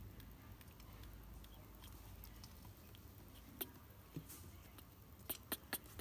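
Faint room tone with a few sharp little clicks and taps: one about three and a half seconds in, then a quick run of four near the end, as a baby monkey shifts and turns about on a plastic chair.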